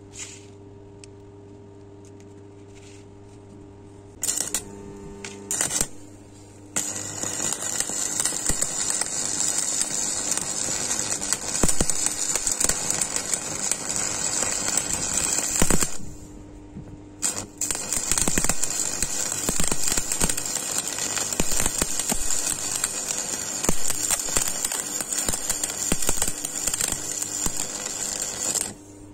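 Electric arc welding on the steel one-way clutch of an e-bike hub motor, fusing it solid: a few short arc strikes about four to six seconds in, then a continuous crackling arc for about nine seconds, a break of about a second, and another long run of crackling.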